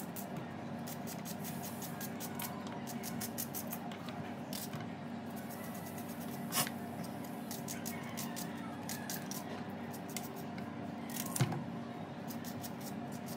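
A knife chopping onions on a cutting board: quick, uneven taps, several a second, with two louder knocks, one about halfway and one near the end.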